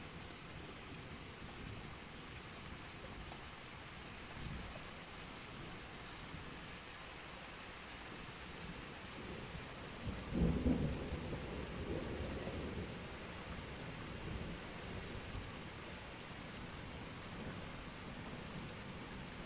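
Thunderstorm: steady rain, with a low rumble of thunder that swells about ten seconds in, peaks briefly and fades over a few seconds.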